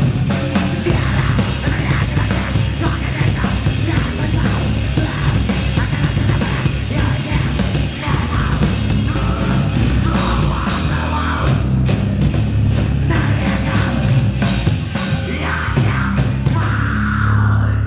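Rock band playing live, loud and heavy, with a pounding drum kit.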